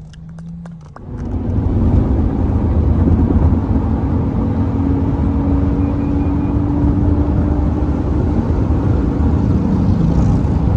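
A few faint clicks, then about a second in, the steady road and engine rumble of a moving car comes in suddenly and stays loud.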